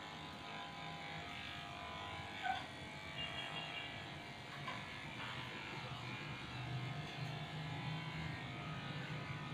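Cordless pet hair clipper running steadily as it shaves a Shih Tzu's matted coat, with a brief louder blip about two and a half seconds in.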